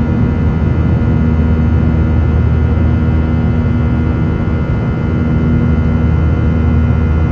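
Steady drone of a Boeing 737-900ER's CFM56-7B jet engines heard from inside the cabin in flight: a low rumble with several steady hum tones over it.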